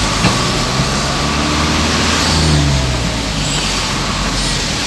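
Vehicle engine pulling away in slow traffic, its low note rising for a couple of seconds, over a steady hiss of heavy rain and tyres on the wet road.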